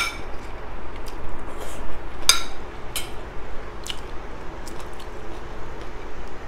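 A metal fork clinks and scrapes on a ceramic plate: a sharp ringing clink at the start, then two more about two and three seconds in. Between and after the clinks come close-miked eating sounds as grilled chicken is pulled apart by hand and chewed.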